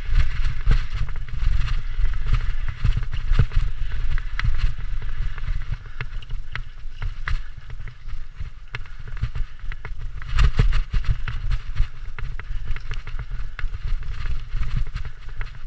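Mountain bike riding fast down a dirt trail: a steady low rumble from the tyres and the rush of air, with frequent sharp rattles and clacks as the bike hits bumps, and a loud burst of them about ten seconds in.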